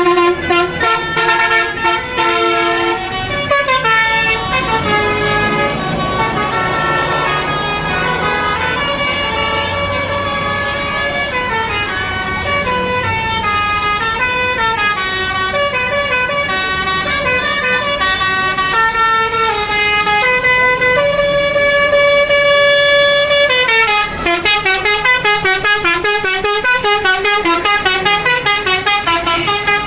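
A tour bus's 'basuri' telolet musical horn playing a tune in held notes that step up and down, several tones sounding together. About 24 seconds in, it changes to a fast pulsing pattern.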